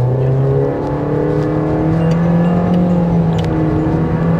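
Nissan Versa's 1.6-litre four-cylinder under full-throttle acceleration through its CVT, heard from inside the cabin: the engine note climbs in two steps over the first two seconds, then holds at one steady pitch while the car keeps gaining speed.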